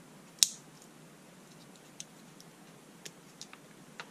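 Lever-operated push-in wire connector clicking as its levers are snapped and wires are worked into it: one sharp click about half a second in, then several fainter clicks and ticks.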